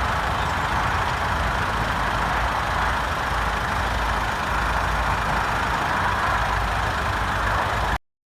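Toyota Corolla 2.2 D-4D four-cylinder common-rail turbodiesel idling steadily when warm, heard from outside the car, with a low rumble under a busy clatter. This is a reference for a healthy engine's idle noise at about 160,000 miles. The sound cuts off abruptly near the end.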